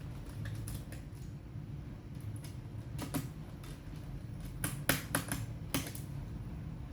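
Scattered light plastic clicks and taps from a laptop being handled or typed on, with a quick run of clicks about five seconds in, over a steady low hum.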